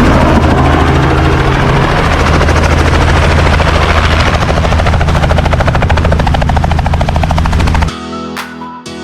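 Tour helicopter running close by: a loud, steady engine-and-turbine sound with the rapid beating of the rotor blades. It cuts off suddenly near the end and gives way to background music with plucked notes.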